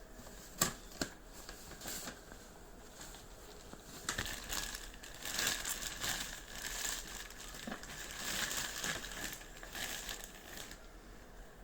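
Two sharp clicks, then packaging crinkling and rustling on and off as it is handled and opened.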